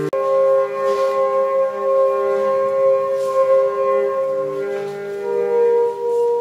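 Violin playing long, held bowed notes, two pitches sounding together, with the notes shifting about five seconds in.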